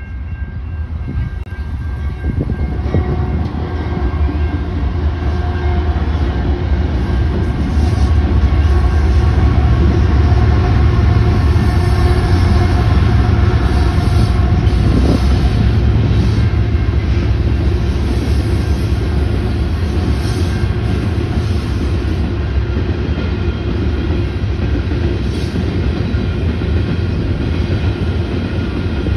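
Freight train passing: the diesel locomotives' low, heavy engine rumble grows louder over the first several seconds. Tank cars then roll by on the rails.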